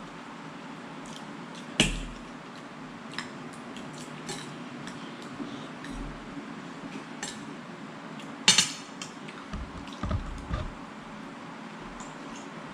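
Cutlery clinking and scraping on plates during a meal, with scattered light clicks, two sharp clinks about two seconds in and about eight and a half seconds in, and a few soft knocks around ten seconds in.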